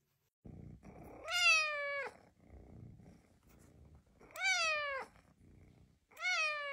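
A kitten meowing three times, each meow rising briefly and then falling in pitch, with a faint low rumble between the meows.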